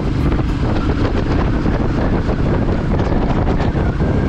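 Loud, steady wind buffeting the microphone on a moving motorcycle, with the bike's engine mostly buried under it.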